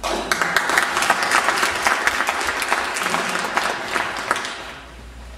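Audience applauding. The clapping dies away about four and a half seconds in.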